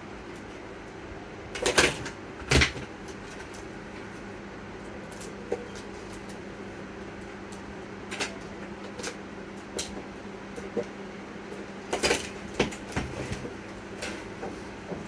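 Clicks and knocks of hands handling a laptop motherboard and connecting its display on a workbench, two loud knocks about two seconds in and another cluster near the end, over a steady low hum.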